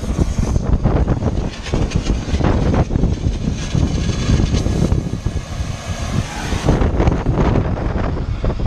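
Oxy-fuel brazing torch burning with a loud, steady rushing hiss as its flame heats the brazed copper line joints on a scroll compressor to unsweat them for removal.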